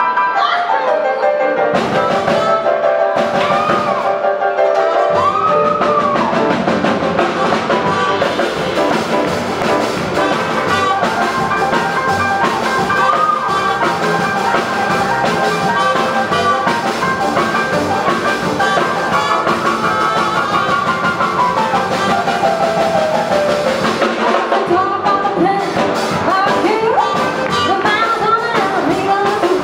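Jazz band playing swing-style music: a woman singing over trumpet, saxophone, upright bass, piano and drum kit.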